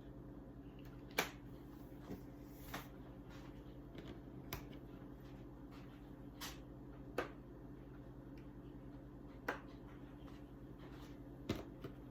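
Faint, irregular clicks and taps, about eight in all, spaced a second or two apart over a steady low hum.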